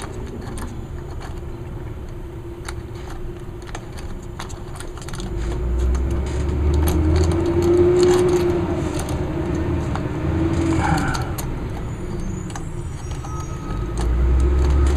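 Garbage truck engine running nearby, its low rumble swelling about five seconds in and again near the end, with a steady hum that wavers in pitch midway. Light clicks and metallic rattles from hand work on the hedge trimmer sound over it.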